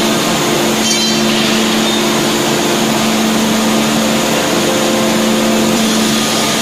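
Hydraulic closed-die forging hammer's power unit running with a steady hum and hiss, with no hammer blows. A brief high squeal sounds about a second in.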